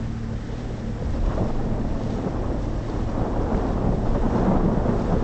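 Wind buffeting the phone's microphone on a moving motorboat, over the low steady hum of the boat's engine; the wind noise grows louder about a second in.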